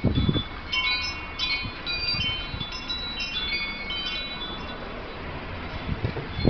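Chimes ringing: several clear, high metallic tones sounding and overlapping from about a second in to about four seconds, over a low rumble.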